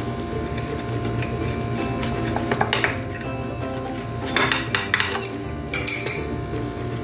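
A steel knife cutting through a crisp paratha on a ceramic plate, the blade scraping and clinking against the plate several times in the middle seconds, over background music.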